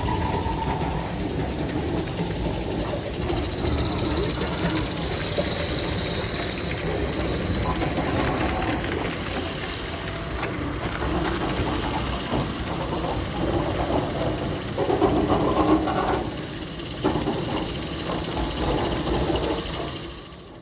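Small live steam locomotive running: a steady mechanical clatter and hiss with faint voices in the background, fading out near the end.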